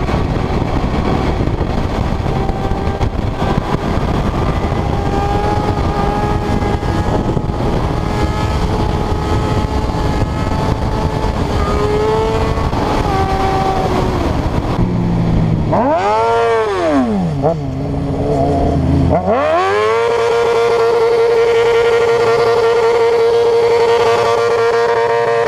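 Sport bikes at highway speed heard from a helmet camera, heavy wind noise over the engine. About fifteen seconds in, a sport-bike engine is revved up and let fall back. From about twenty seconds it is held at steady high revs for a burnout.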